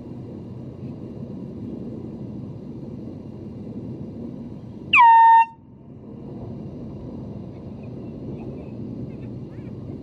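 One short air-horn blast, about half a second long, about five seconds in. Its pitch drops sharply at the start and then holds steady.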